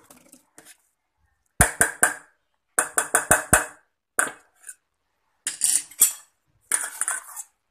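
Hand-held stick blender run in about five short bursts in a stainless steel bowl of liquid egg-and-oil mixture, its head knocking sharply against the bowl several times in the first two bursts.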